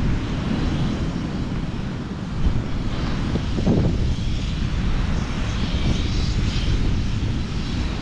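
Wind buffeting the microphone: a steady, rough low rumble that rises and falls slightly.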